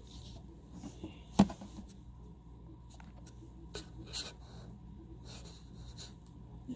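Close handling noise from fingers gripping and shifting a plastic cartridge pregnancy test against a phone: light rubbing and scraping, with one sharp knock about a second and a half in.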